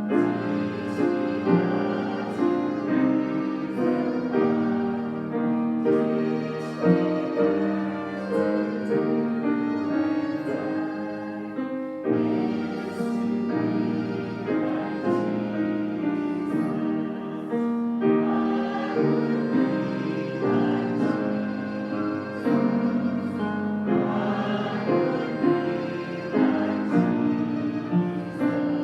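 Congregation singing a hymn with piano accompaniment.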